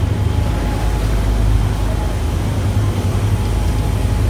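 Boat engine running with a steady low rumble, with no change in pitch or loudness.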